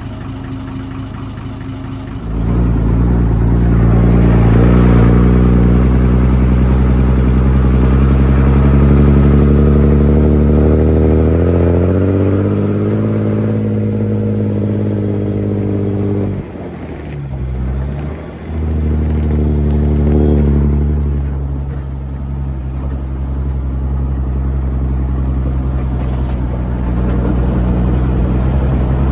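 Volvo F85 truck's turbo diesel engine running through a loud exhaust pipe on a cold start. It jumps to a loud run about two seconds in and climbs in pitch as it is revved. Past the middle it falls away sharply and dips for a couple of seconds, then picks back up and runs steadily.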